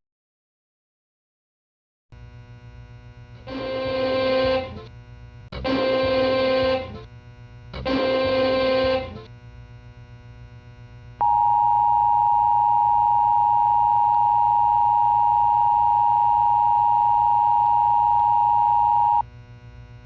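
Emergency Alert System signal, starting after about two seconds of silence over a low hum. Three header data bursts of about a second each come a second apart, then a steady attention tone holds for about eight seconds and cuts off sharply.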